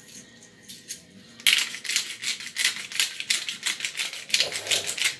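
Hand-twisted pepper mill grinding black peppercorns: a rapid run of crunchy clicks that starts about a second and a half in and keeps going until near the end.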